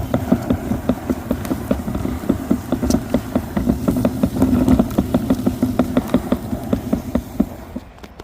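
Push-type leaf sweeper rolling over fallen leaves, its brushes and drive rattling with a fast, even clicking over a steady buzz. It stops just before the end.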